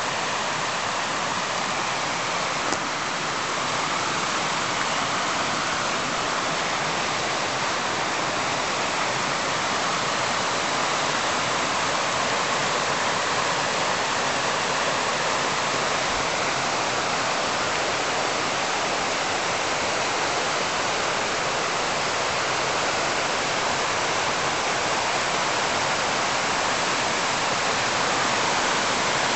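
Small mountain creek rushing over boulders in a steady wash of white water, running with fresh runoff after rain.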